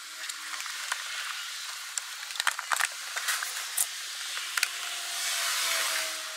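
Plastic air-filter box lid being fitted back over a new panel filter: a handful of sharp plastic clicks and knocks over a steady hiss that swells briefly near the end.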